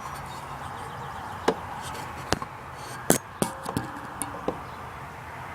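Several sharp knocks and clinks, about seven spread over three seconds, a couple with a brief ring, over a steady background hiss.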